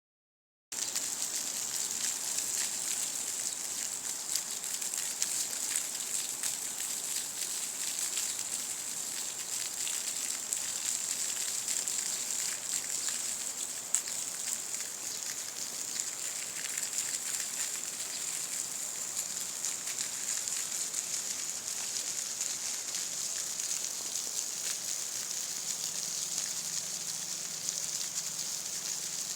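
Small waterfall: a steady, hissing rush of splashing water with fine crackle, starting just under a second in, with one sharper tick about halfway through.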